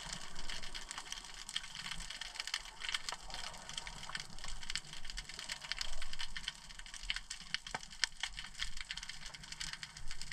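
Underwater ambience over a rocky seabed: a dense, irregular crackle of fine clicks, the kind of crackling typically heard on a Mediterranean reef, recorded underwater through the camera's housing.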